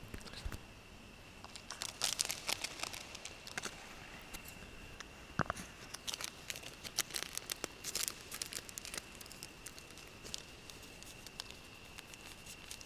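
Plastic bag and camp gear being handled, making irregular crinkling and small clicks that are busiest in the middle, over a faint steady high whine.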